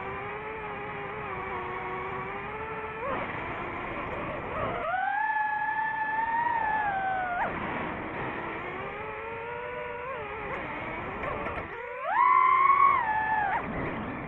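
DJI FPV quadcopter's motors and propellers whining, the pitch rising and falling with the throttle, with louder, higher-pitched surges about five seconds in and again near the end.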